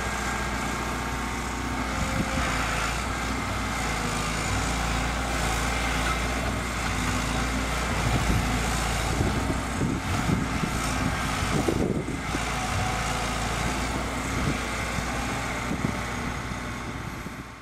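Diesel engine of a Liebherr 924 Litronic excavator running steadily, with a constant low hum, louder and more uneven for a few seconds in the middle, then fading out at the end.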